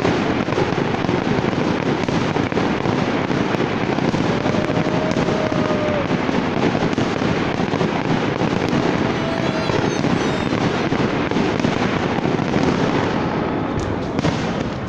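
Aerial fireworks bursting overhead in a continuous barrage of dense, overlapping crackles and pops, with no gaps.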